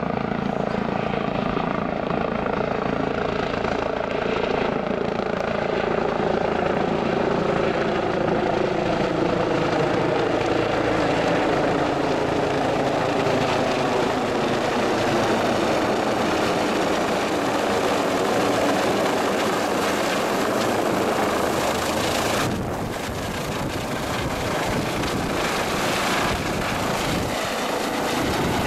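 Medical helicopter's turbine engine and rotor running continuously, with tones that slowly fall in pitch over the first ten seconds or so.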